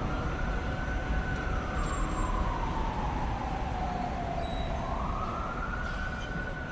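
An emergency vehicle siren wailing in a slow rise and fall, about one full sweep every five seconds, over a steady noisy rumble.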